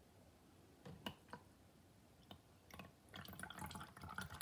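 Cold isopropyl alcohol poured from a plastic jug into a plastic cup of liquid, a faint pouring sound that starts about three seconds in, after a few light clicks.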